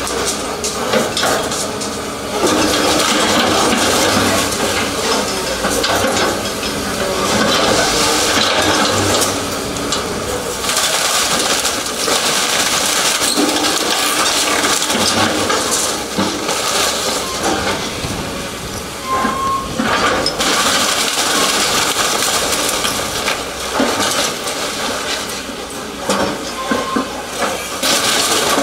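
A Doosan excavator tears into a concrete-block house: masonry cracking and crunching, and rubble falling in a long, loud rush of clattering debris, with no let-up.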